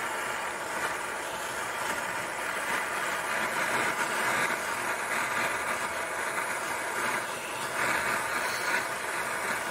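Jeweller's gas soldering torch hissing steadily as its flame heats and solders small 14k gold chain rings.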